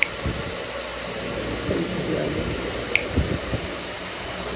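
Steady whir of a room fan, with a few sharp clicks and soft rustling and thumps as the puppy moves about on the bed.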